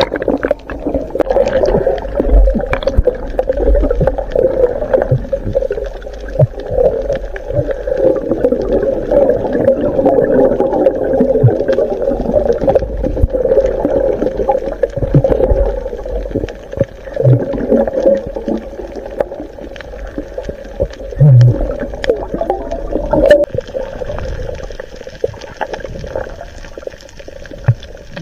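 Underwater sound picked up by an action camera in its waterproof housing: a loud, muffled churning of water with a low rumble and many scattered small clicks and knocks, opening with a splash as the camera goes under.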